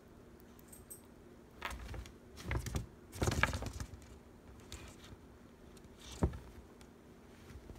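Close handling noise: three short spells of crinkling and rustling, the third the loudest, then a single sharp click a few seconds later.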